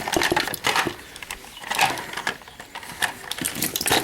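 Cutters snipping wires inside an opened battery backup unit: a quick, irregular run of sharp clicks and small metallic clatters.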